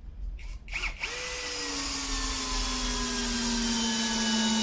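SfunPro 16V cordless drill/driver in low gear driving a long screw into a log. The motor starts about a second in and runs steadily, its whine slowly lowering in pitch as the screw sinks in and the load grows.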